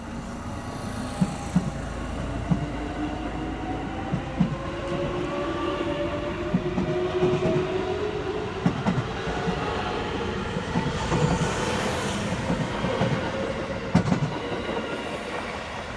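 JR West 207 series electric commuter train pulling away and accelerating: the whine of its inverter-driven traction motors climbs steadily in pitch, over a rolling rumble with repeated clacks of the wheels over rail joints.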